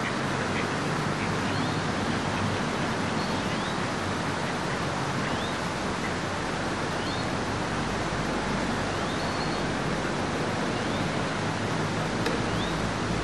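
A steady, even rushing noise, with a bird's short rising chirp repeating every second or two.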